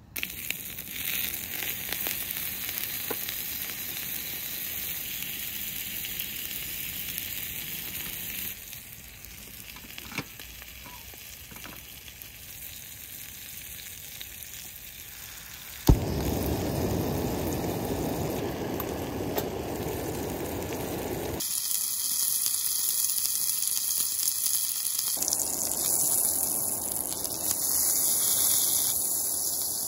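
Food frying and sizzling in a hot pan: a steady hiss that changes abruptly in level and tone every few seconds, with a sharp click about 16 seconds in.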